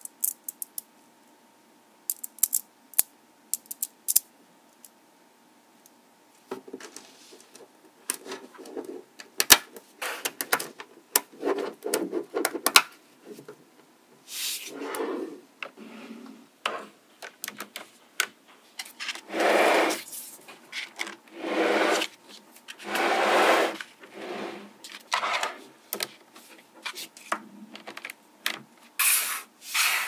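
Small magnetic balls clicking as they snap together, at first a few sharp isolated clicks. From about six seconds in comes a busier run of clicking and rattling, with longer gritty rubbing of balls against balls and the table in the second half.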